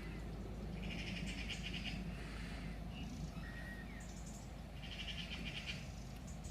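A bird calling: two harsh, pulsing calls about four seconds apart, each about a second long, with a few short chirps between them, over a steady low background hum.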